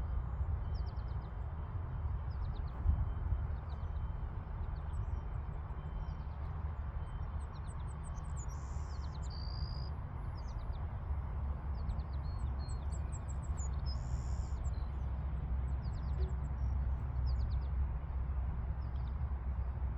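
Small birds chirping in short, high calls scattered throughout, over a steady low rumble of wind on the microphone.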